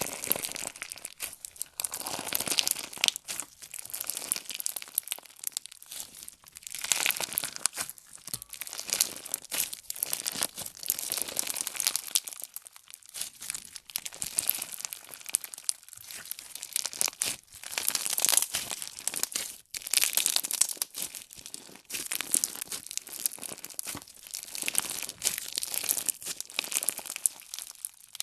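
Slime being worked by hand: a dense, continuous crackle of small clicks and pops, swelling and easing every few seconds.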